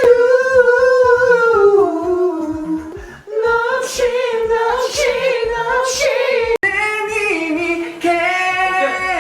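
A man sings a slow melody unaccompanied in a high voice, holding long, wavering notes. The line breaks off briefly about three seconds in, and the sound drops out for an instant near the seventh second.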